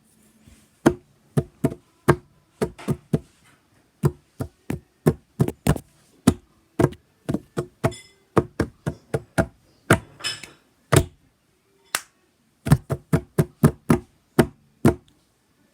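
Sharp knocks and taps, probably on a hollow surface, struck by hand in an uneven, song-like rhythm of about two to three hits a second. About two-thirds of the way through there is a brief rustling scrape.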